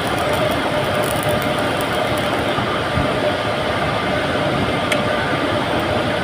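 Steady, loud machine noise running without a break, with one faint click about five seconds in.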